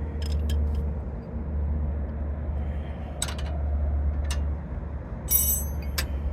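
A few scattered metallic clicks and clinks of a socket and wrench on the sway bar end link hardware, one with a brief ringing about five seconds in, over a steady low rumble.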